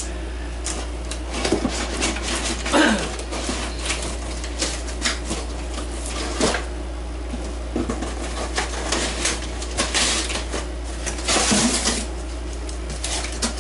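A cardboard box being opened and its contents handled: scattered rustles, scrapes and light knocks of cardboard and packing, with a denser spell of rustling about ten to twelve seconds in. A steady low hum sits underneath.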